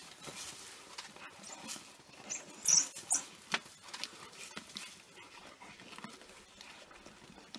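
A pack of African wild dogs feeding on a fresh impala kill: scattered tearing and crunching sounds, with a few short, high, squeaky calls about three seconds in.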